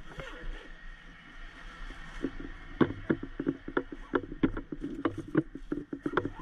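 A nylon medical bag being handled: a soft rustle, then about two seconds in a quick, irregular string of knocks and clunks as gear and the bag are moved about. A steady low hum runs underneath.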